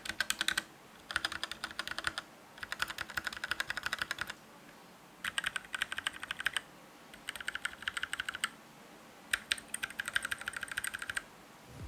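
Keychron K6 mechanical keyboard with its stock brown tactile switches being typed on: rapid clattering keystrokes in about six quick runs separated by short pauses.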